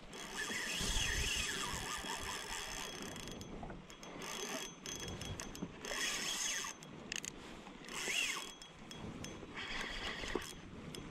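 Spinning reel cranked in several short spells of about a second each, its gears whirring as line is wound in.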